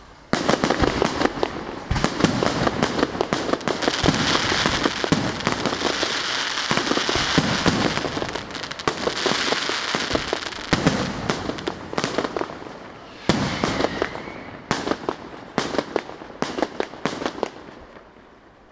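Fireworks display: a dense, continuous run of crackling pops and bangs with a hissing crackle over it, starting about half a second in. In the last few seconds it thins out to scattered sharp bangs and fades away.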